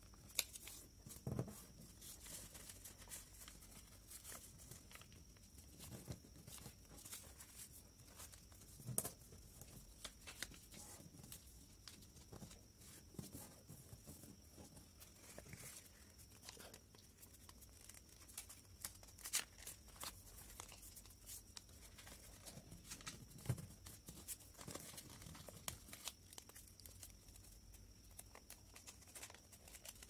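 Faint rustling and crinkling of a sheet of paper being folded and creased by hand, with scattered soft clicks and taps as the folds are pressed down, over a faint steady high whine.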